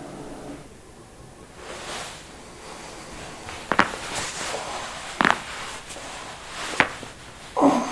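Three sharp joint cracks about a second and a half apart as a person's joints are manipulated, followed near the end by a duller thump.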